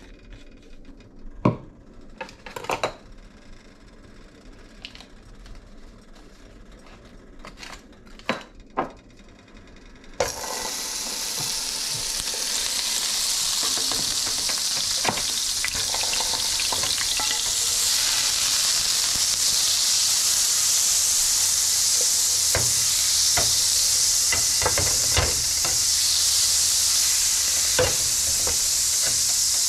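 Butter and olive oil in a hot non-stick frying pan: a few light clicks at first, then a loud steady sizzle starts abruptly about ten seconds in as the butter hits the hot oil, with occasional clicks. Near the end a breaded flounder fillet is laid into the sizzling fat.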